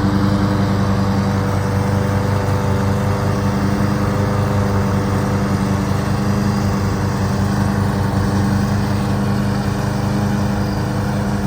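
Riding lawn mower engine running steadily at an even speed, with no revving or change in pitch.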